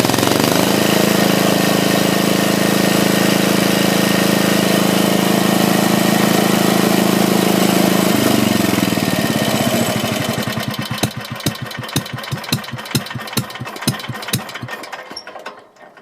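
UD-1 engine running steadily at high speed, then dropping in revs about eight seconds in. It slows to separate firing beats that come further and further apart, and stops near the end.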